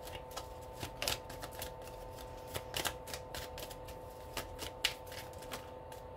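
Tarot cards being shuffled by hand: a run of irregular soft snaps and flicks as the cards slide against each other, stopping shortly before the end.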